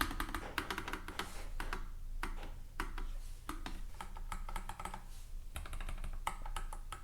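Typing on a Nuphy Air 75 low-profile mechanical keyboard: a quick, uneven run of key clicks as its switches are tried out.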